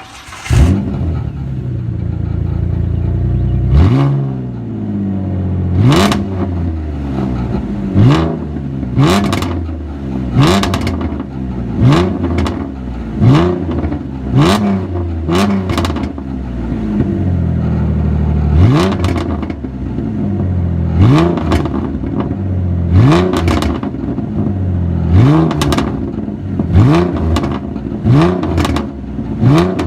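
Ford Mustang 4.0-litre V6 idling, then blipped over and over, about every second or two. Each quick rise in revs is followed by pops and crackles from the exhaust as the revs fall back.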